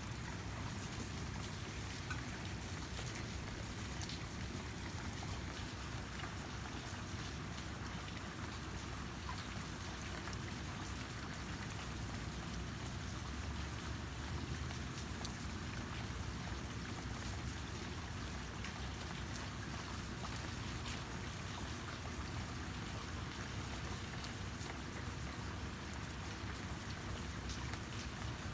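Steady rain falling, a continuous hiss with many small drop ticks on a surface.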